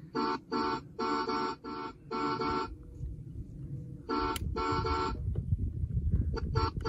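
Electronic horn of a 12V ride-on toy Jeep Wrangler sounding through its little speaker, honked over and over in short beeps of the same pitch, with a pause in the middle and a quicker run of beeps near the end.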